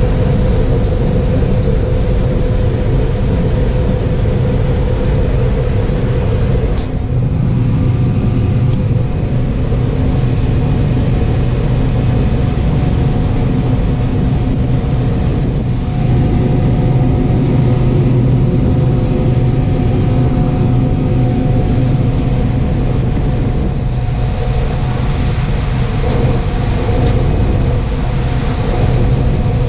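John Deere 9570 combine running steadily while harvesting corn, a loud low drone of engine and threshing machinery that changes tone slightly a few times.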